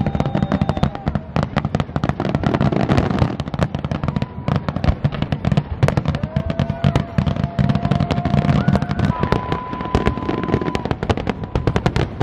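Fireworks display: a dense, rapid run of shells bursting with bangs and crackling. Long, steady whistling tones sound over the bangs at times.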